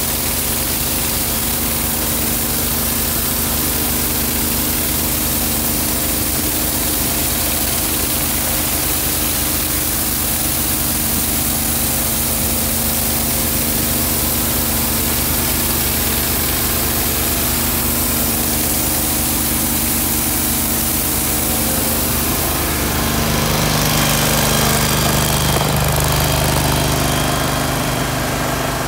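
The PWP 500 pressure washer's gas engine runs steadily at constant speed, driving its 15 gpm pump, with a strong hiss from the surface cleaner's water jets on concrete. About 23 seconds in, the engine hum grows louder and the hiss fades.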